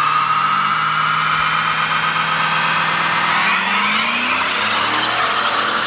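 A car doing a burnout or skid: its tyres squeal in one long, unbroken screech while the engine holds steady revs, then climbs from about halfway through.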